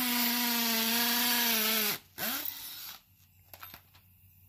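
Cordless drill boring into a galvanized steel sliding-gate rail to make holes for rivets: a steady high motor whine whose pitch sags slightly under load, cutting off about two seconds in. A short, fainter whir follows, then a few light clicks.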